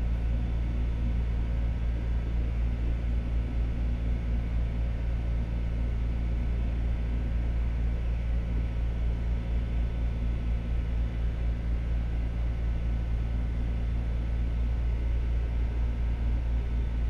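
Steady low rumble and hum inside a Madrid Metro 5000-series CAF car, with a few constant hum tones over the deep rumble.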